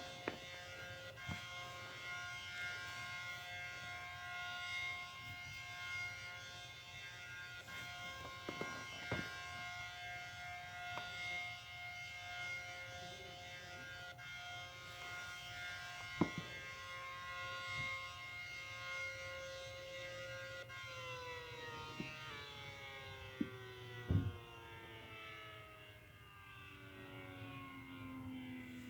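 ACA Allertor 125 outdoor warning siren sounding a steady tone of several even pitches, then winding down, its pitch falling steadily from about two-thirds of the way through. A few sharp clicks are heard over it.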